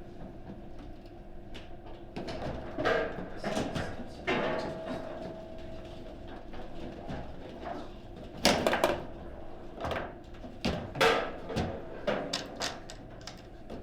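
Table football rally: the ball cracked by the rod-mounted player figures and the rods knocking in the table, in irregular sharp knocks, loudest in two clusters about two-thirds of the way through.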